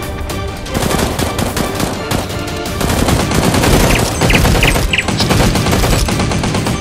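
Rapid automatic machine-gun fire, a gunshot sound effect dubbed over toy Nerf blasters being fired, starting about a second in and running on in long bursts.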